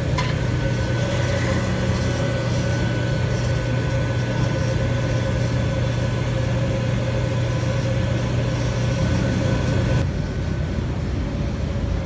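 Gas-fired glory hole (glassblowing reheating furnace) running: a steady burner and blower noise with a low hum and a thin high whine. Most of it drops away suddenly near the end, leaving a quieter low hum.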